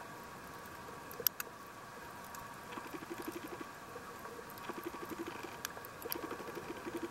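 Underwater sound picked up through a camera: a steady hum under short bursts of rapid, low fluttering pulses that come every second or two, with scattered sharp clicks, one louder click about a second in.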